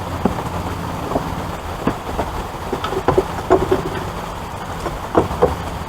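Bottles and containers of cleaning supplies clunking and knocking as they are set onto the shelves of a wooden blessing box, in a few separate clatters, over a steady low hum.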